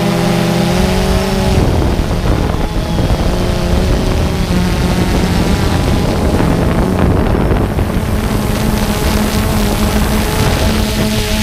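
DJI Phantom 2 quadcopter's motors and propellers running, a steady low hum under a rushing noise, with wind on the microphone of the camera riding on the drone. Further motor tones come in about eight seconds in.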